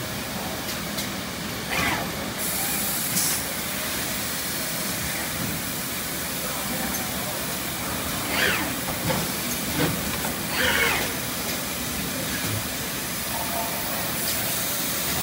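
Steady running noise of an injection moulding machine and its in-mould-labelling robot, with short hisses of compressed air from the robot's pneumatic grippers and cylinders about two seconds in and twice more later on.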